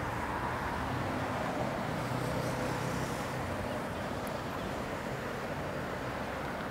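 Steady hum of city traffic, an even rumble with no distinct events.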